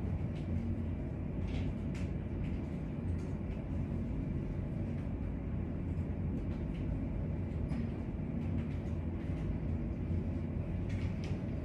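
Steady low rumble of room background noise, with a few faint clicks.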